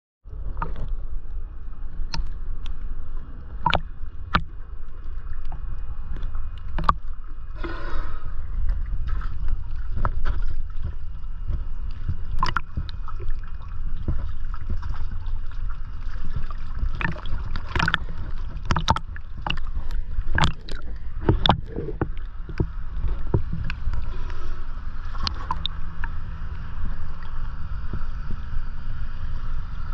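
Water sloshing and lapping against a camera housing held at the waterline, with a steady low rumble and irregular sharp splashes and knocks as small waves wash over it.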